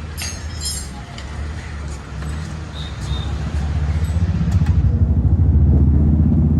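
Motorcycle engine running with a steady low drone, getting louder about two-thirds of the way through.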